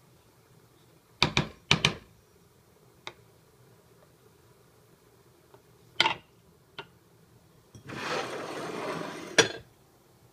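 Wooden spoon knocking against a glass saucepan of boiling herbal decoction: a few sharp knocks at intervals through the first six seconds or so. Near the end comes a scraping rush of about a second and a half that ends in a sharp glass clink.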